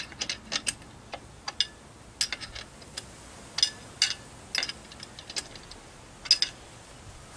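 A 5/8 wrench clicking and clinking on the bolts of an outboard's lower unit as they are snugged up, in irregular sharp metallic ticks a fraction of a second to about a second apart.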